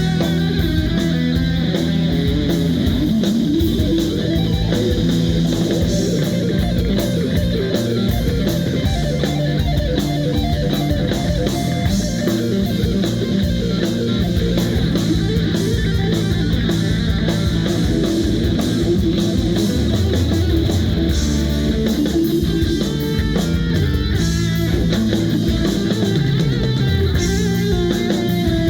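Live rock band playing: electric guitar to the fore over bass and a drum kit, loud and steady.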